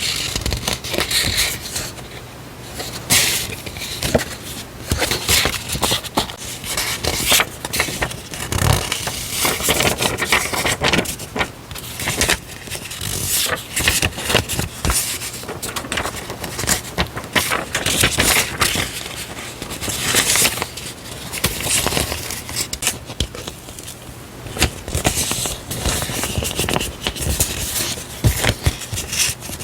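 Paper stationery and its packaging handled close to the microphone: continuous rustling and crinkling, broken by sharp crackles and scrapes.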